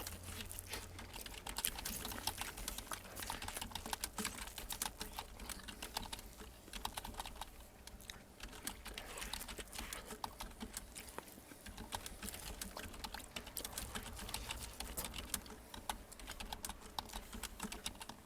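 Computer keyboard being typed on continuously: a dense, irregular run of key clicks close to the microphone, thinning briefly a couple of times.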